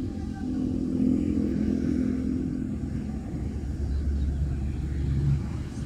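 A motor vehicle engine running with a low steady hum; the sound deepens into a heavier low rumble in the last two seconds.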